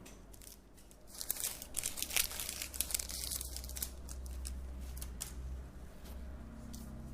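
Close crinkling and crackling rustles, thickest between about one and four seconds in and sparser afterwards, over a low steady hum.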